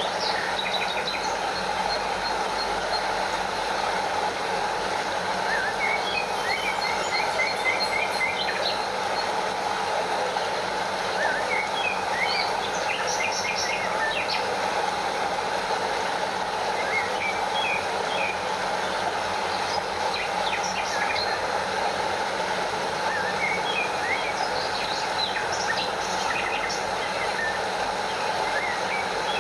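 Steady rush of a stream flowing over a small waterfall, with short bird chirps and quick trills scattered over it.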